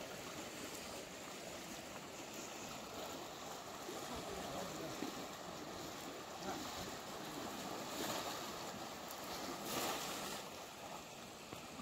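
Steady rush of a shallow, fast-flowing river, swelling briefly louder twice near the end.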